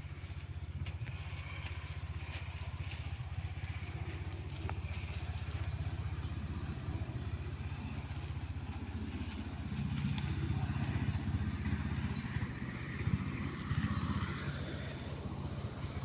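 An engine running steadily with a low hum, growing louder and rougher about ten seconds in, with scattered faint clicks over it.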